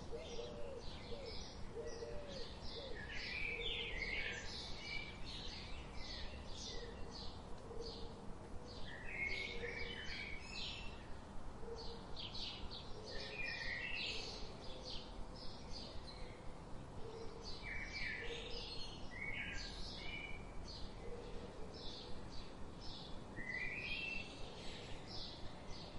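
Several birds calling: many quick, high chirps in bursts and runs. Beneath them are softer, low, repeated calls that fade out over the first half.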